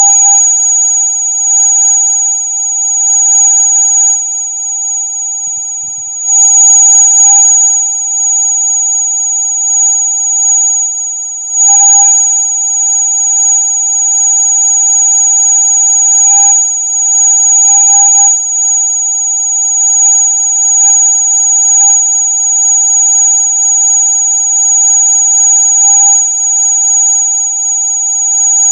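Electronic rat-repellent sound: a loud, steady, piercing tone, a mid-pitched note with a strong high whistle above it, held without a break and wavering slightly in loudness.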